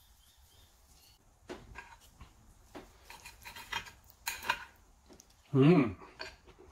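A knife and fork scraping and clinking against a plate as a steak is cut, in scattered short clicks and scrapes. Near the end a person makes a brief vocal sound, the loudest moment.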